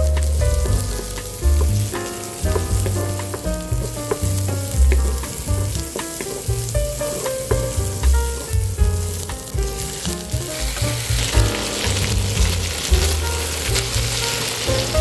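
Food frying and sizzling in a pan, with stirring, under background music with a stepping bass line.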